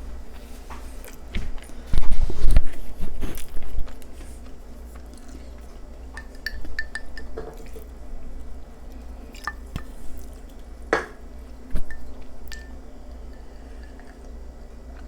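Close-miked eating sounds: wet chewing and food being handled on a plate. A cluster of loud bumps and knocks comes about two to three seconds in, with scattered small clicks and smacks after.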